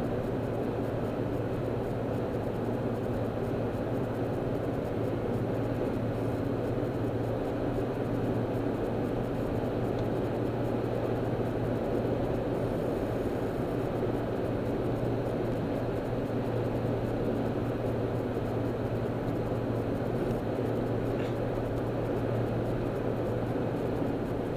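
Steady in-cabin noise of a car cruising at freeway speed: tyre and road roar with a constant low engine drone, unchanging throughout.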